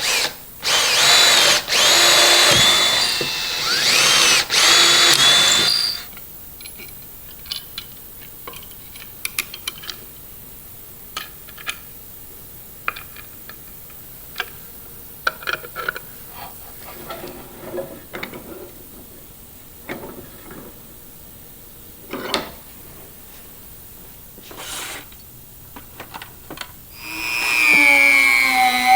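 Small handheld power tool, drill-like, running in bursts for about six seconds, its whine rising and falling in pitch. It is followed by scattered light clicks and taps, and the motor starts up again near the end.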